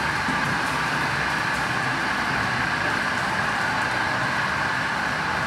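Magic Wand NeXus touch-free car wash running its clear coat protectant wax cycle: a steady hiss of spray with a constant high pump whine.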